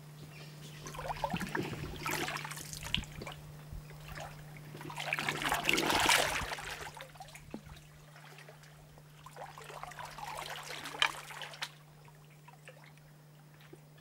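Water trickling and splashing around a small boat, in irregular swells that are loudest about six seconds in, over a faint steady low hum.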